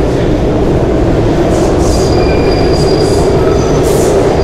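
A subway train running through the station: a loud, steady rumble, with thin high wheel squeals coming in from about two seconds in.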